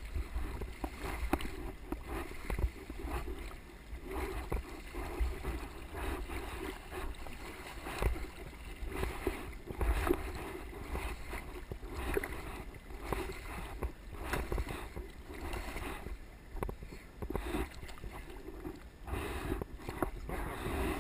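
River water splashing and sloshing around a kayak, with uneven short splashes and knocks over a steady low rumble.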